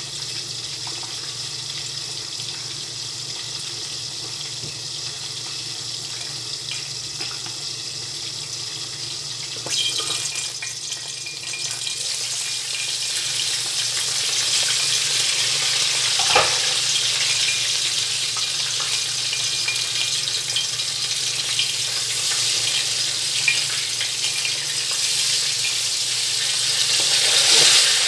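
Oil frying in a pan, a sizzling hiss that starts suddenly about ten seconds in and grows louder, over a steady low hum, with one sharp knock midway.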